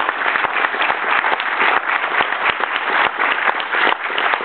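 Audience applauding: many hands clapping in a dense, steady patter that does not let up.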